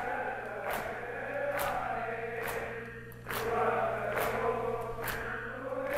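Crowd of Shia mourners singing a noha together in unison. Hand slaps on the chest (matam) keep a steady beat, a little under one a second.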